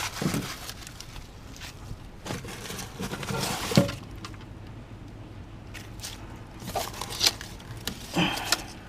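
Ears of wet corn being handled and thrown out by hand: irregular rustling and scraping with scattered knocks, the sharpest nearly four seconds in and more around seven and eight seconds.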